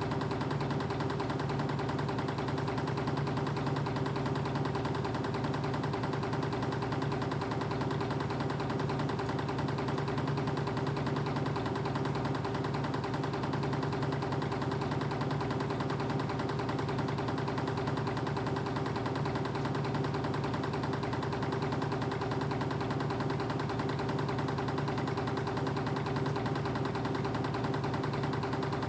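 Spring-making wire machinery running steadily, a reciprocating wire uncoiler line: a constant hum with a fast, even clatter over it.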